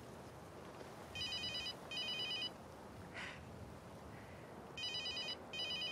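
Basic keypad mobile phone ringing with an incoming call: a high, trilling electronic ring in pairs of short bursts, heard twice.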